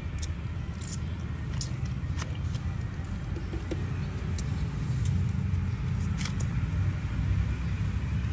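Steady low rumble of passing street traffic, with a few faint, brief clicks.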